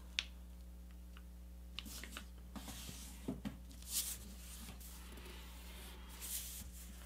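Faint rustles, soft taps and a brief swish of a sheet of paper being folded, pressed flat and slid around on a cutting mat, over a low steady hum.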